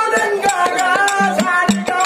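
Kannada dollu pada folk music: a man singing into a microphone over a group of dollu barrel drums beaten in a steady rhythm.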